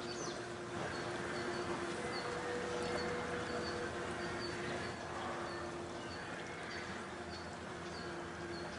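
Outdoor night ambience: a steady hiss and a low hum, with a short, high chirp repeating about twice a second, unevenly spaced.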